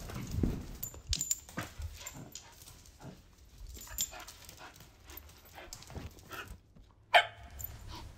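A cardboard parcel is handled with scattered small knocks and rustles, then a dog gives a single short, loud bark about seven seconds in.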